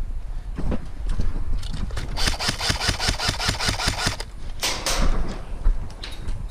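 Airsoft gun firing a full-auto burst of rapid, evenly spaced shots lasting about two seconds, with a few single shots before and after.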